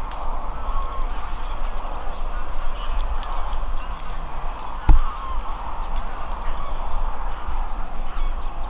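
A large flock of geese honking together, a dense, steady chorus of calls, over a low rumble of wind on the microphone. A single sharp thump about five seconds in is the loudest sound.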